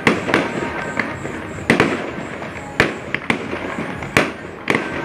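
Fireworks exploding: about eight sharp bangs at irregular intervals over a continuous background din.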